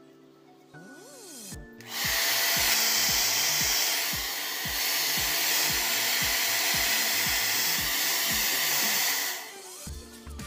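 Handheld hair dryer blowing hot air while hair is blow-dried over a round brush, switched on about two seconds in and off near the end. Background music with a steady beat plays underneath.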